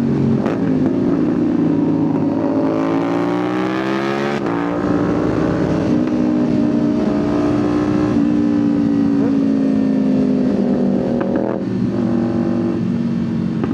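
Kawasaki Ninja 500 parallel-twin engine under way, pulling up through the revs and dropping in pitch at each upshift, about four and eight seconds in, with wind noise rushing over it.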